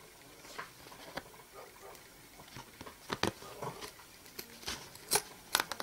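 Scissors trimming off leftover bits of fabric along the edge of a cardboard card: a scattering of light snips and clicks at uneven spacing, louder ones in the second half.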